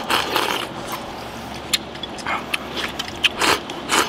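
A person eating rice from a bowl with chopsticks, close to the microphone: chewing and mouth smacks, with short sharp clicks scattered through.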